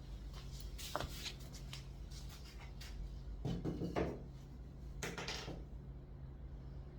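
Handling sounds of carpentry work: a sharp knock about a second in, then two short bouts of scraping and rubbing, over a steady low hum.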